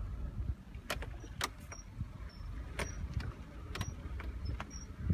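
Mitsubishi Lancer 9 suspension squeaking and creaking while driving over bumps: short irregular clicks and squeaks about once a second over a low road rumble. The squeak comes from the coil spring rubbing against the brake hose and its bracket.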